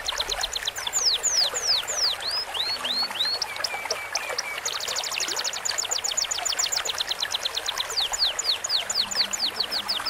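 Cage-bird song from a training recording mixing canary, cucak cungkok and lovebird, over a trickling stream. The song alternates runs of fast, rapidly repeated high notes with strings of long falling whistled sweeps, and has a short, quieter trill near the middle.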